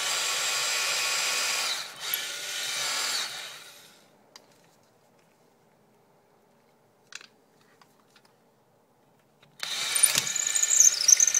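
Porter Cable 840 cordless drill in its high-speed gear, running fast on an 11.1 V lithium polymer RC battery as it drills through wood. It runs steadily, dips briefly, runs again and winds down about four seconds in. After a quiet spell with a few faint clicks it starts drilling again near the end, with a high squeal over the motor.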